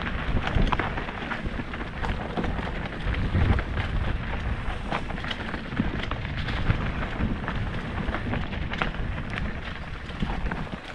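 Mountain bike descending a rough forest singletrack, heard from a helmet-mounted camera: tyres rolling over dirt and dry leaves and the bike rattling and clattering over roots and bumps, with wind rumbling on the microphone.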